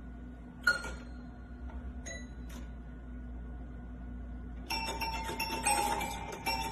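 Toy piano keys pressed by a cat's paw: three single notes in the first few seconds, then a quick jumble of notes near the end. The cat plays it as its way of asking to be fed.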